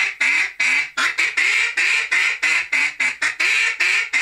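A Cadence mallard-hen duck call blown in a quick run of short, sharp quacks, about three or four a second. This is the landing call, an invitation to passing ducks to come down and land.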